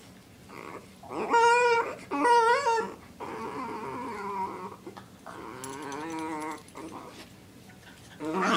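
A dog whining in long, wavering cries: two loud ones a second or so in, then two longer, quieter ones.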